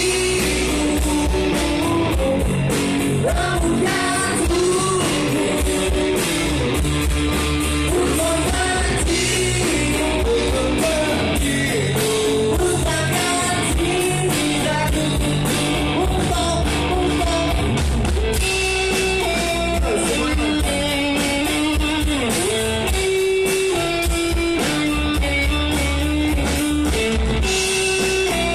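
Live band playing a song through stage speakers: a singer with electric guitar and a drum kit keeping a steady beat.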